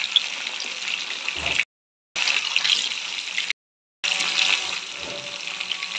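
Fish pieces sizzling as they shallow-fry in hot oil in a pan, a steady crackling hiss broken twice by brief dead-silent gaps.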